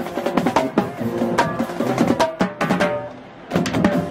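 Background music with a drum beat and a melody, dropping out briefly about three seconds in before the beat returns.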